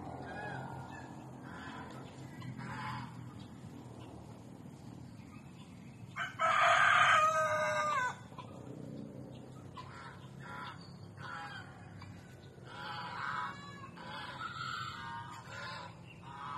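A rooster crows once, loud, about six seconds in, a call nearly two seconds long that drops at the end. Shorter poultry calls come now and then before and after it.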